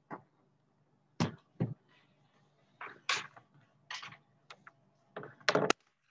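About ten short knocks and thumps at irregular intervals, the loudest two close together near the end.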